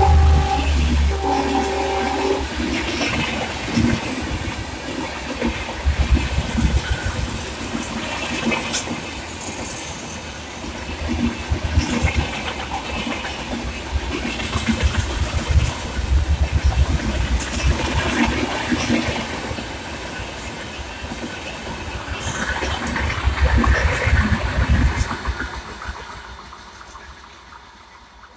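Rajdhani Express coaches rushing past at speed behind a diesel locomotive. The end of the locomotive's horn blast sounds in the first two seconds, then the wheels rumble and clatter over the rail joints in repeated loud swells. The sound dies away near the end as the train recedes.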